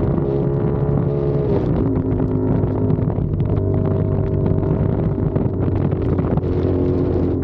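CFMOTO 450SR parallel-twin engine pulling at steady riding revs. Its pitch drops about a second and a half in, then holds steady.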